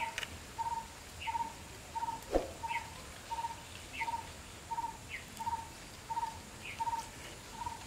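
A bird calling one short note over and over at an even pace, about three notes every two seconds, with a second, higher, falling chirp every second or so. A single sharp knock about two and a half seconds in.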